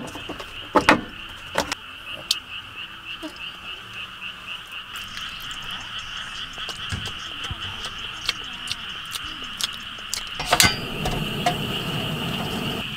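A chorus of frogs calling steadily with a rapid pulsing trill, with scattered clinks of dog kibble against a glass bowl. About ten and a half seconds in, a portable butane stove clicks alight and its burner runs with a steady low hiss.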